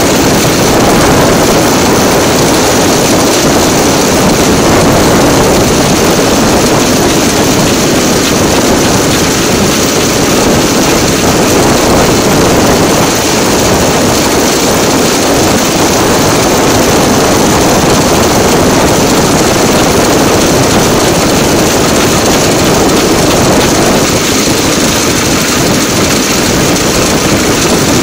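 DL2 rail draisine running steadily along the track, heard from on board: a continuous loud engine drone mixed with wheel-on-rail noise, with no change in pace.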